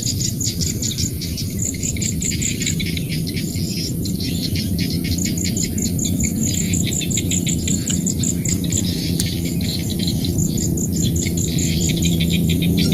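Rice-paddy nature chorus: insects trill in rapid, evenly repeated high pulses over a dense low chorus of frogs, with bird chirps mixed in.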